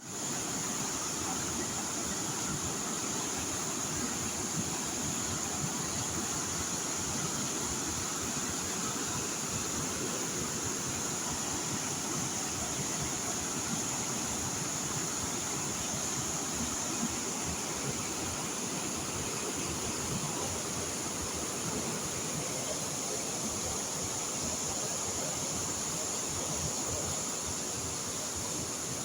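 Steady rushing water, an even noise with no breaks or surges, with a constant thin high-pitched hiss above it.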